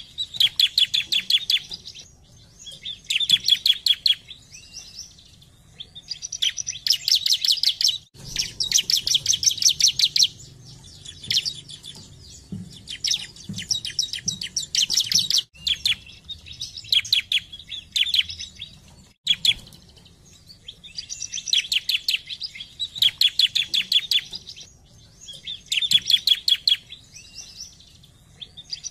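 Bar-winged prinia (ciblek) singing: about ten quick-fire phrases of rapid, high, repeated chirps, each lasting one to three seconds, with short pauses between.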